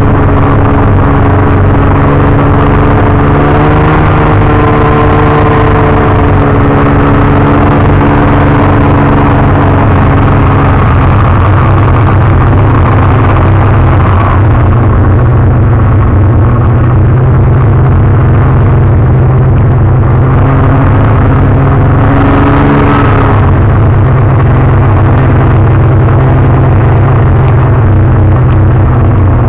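Snowmobile engine running loud and steady, heard from on board as the machine travels along the trail pulling a trail groomer; its engine note shifts a little in pitch now and then.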